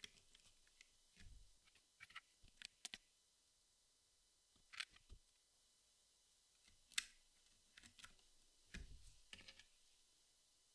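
Jigsaw puzzle pieces being handled and set down: scattered soft clicks and taps at an irregular pace, with a couple of dull low thumps.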